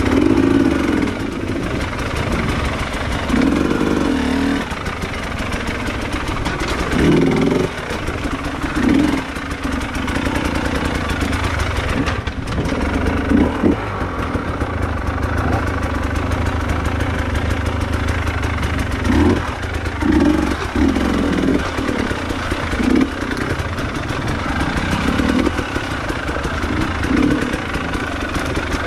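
Trail motorcycle engine running under way off-road, with repeated short swells of throttle over a steady engine note.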